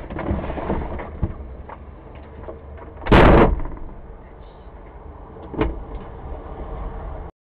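A vehicle door slams shut about three seconds in, over the steady low idle of the Aixam Mega microcar's small Kubota diesel engine. A lighter knock follows a couple of seconds later.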